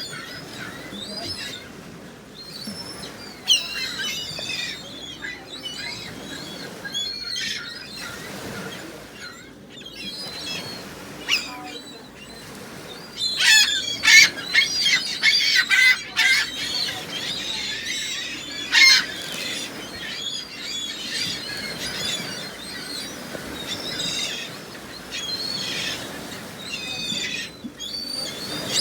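A flock of gulls calling, many short high cries overlapping, at their busiest and loudest about halfway through.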